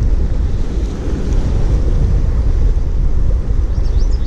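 Wind buffeting the microphone over the steady rush of a flowing stream, with a short run of high chirps near the end.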